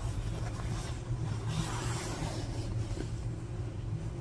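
Quilting cotton fabric rustling as it is unfolded and handled, loudest about a second and a half to two and a half seconds in, over a steady low hum.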